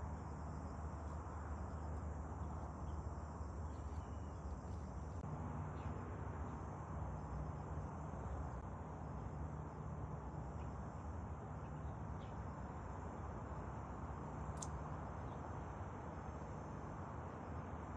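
Insects chirring steadily in a thin high-pitched band, over a constant low hum and hiss.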